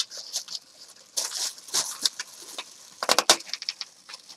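Plastic shopping bag rustling and crinkling as plastic food packaging is stuffed into it, with a quick run of sharp plastic clicks about three seconds in.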